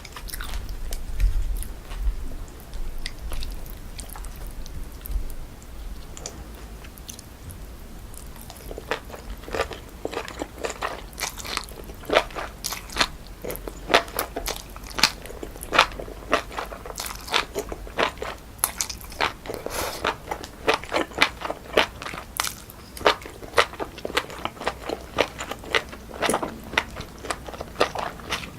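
Close-miked mouth sounds of eating naengchae jokbal, cold pork feet tossed with jellyfish salad: biting and chewing with crisp, wet crunches. It is softer for the first third, then the crunches come thick and fast, about two or three a second.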